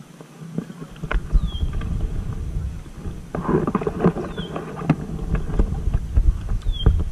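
Kayak paddle strokes: the double-bladed paddle dipping and splashing, with short knocks, over a low rumble of wind on the microphone. Three short, high, falling chirps from a bird.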